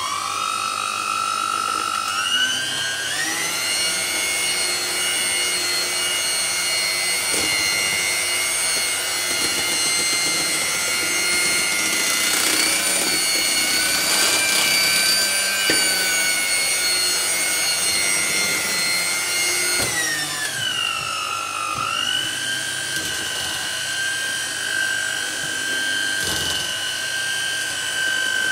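Electric hand mixer beating icing sugar into icing, its motor whining steadily. The pitch steps up about two to three seconds in as the speed is raised, then drops back to a lower speed about twenty seconds in.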